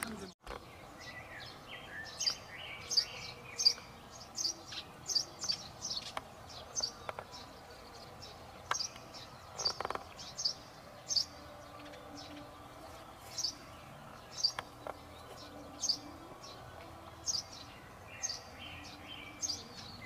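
A small bird chirping over and over outdoors, short high calls repeated every second or so, with a soft knock about halfway through.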